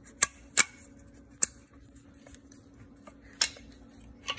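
Five sharp, scattered clicks and taps of hard plastic and metal parts being handled and fitted together as a diaphragm chamber goes back onto a septic air pump's housing, over a faint steady hum.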